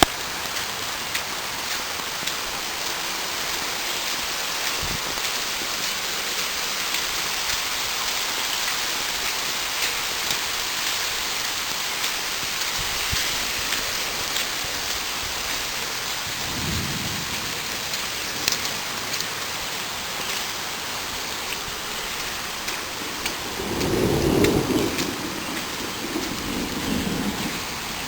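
Steady rain hiss through a thunderstorm, with thunder rumbling twice: briefly about two-thirds of the way in, then louder and longer near the end.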